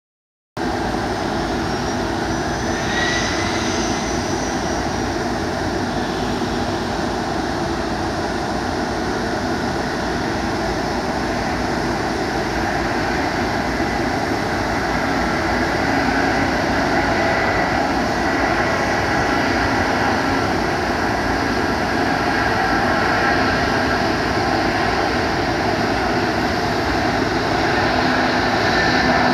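Antonov An-124's jet engines running as it taxis: a steady jet rumble with a high whine over it, and a whine that rises about three seconds in.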